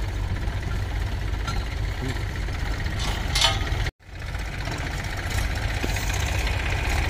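Diesel tractor engines running steadily at idle with a low rumble, a short louder hiss about three and a half seconds in. The sound drops out for an instant just before four seconds in, then the engines carry on.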